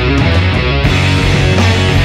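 Loud heavy rock music with electric guitar.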